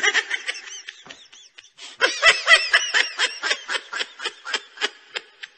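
High-pitched laughter: a rapid run of short 'ha' sounds, about four or five a second. It tails off, then starts again louder after a brief pause about two seconds in.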